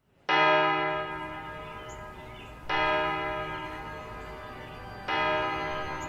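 A church bell tolling: three strikes about two and a half seconds apart, each ringing on and fading before the next.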